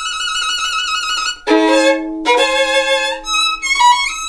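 Background music led by a violin: one long held note with vibrato, then a string of shorter notes moving up and down in pitch.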